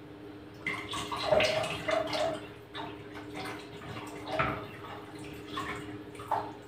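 Water poured in a thin stream from a small steel pot into a cooking pot on the stove, trickling and splashing unevenly, over a steady low hum.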